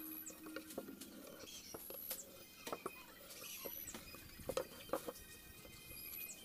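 Scattered light taps and knocks with a few short squeaks from hands handling and rubbing against the inside of a plywood subwoofer box.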